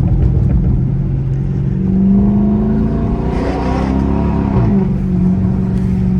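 Chrysler 300S's 5.7 Hemi V8 engine running under way. The engine note rises, then its pitch falls about three to four and a half seconds in, before it holds steady again.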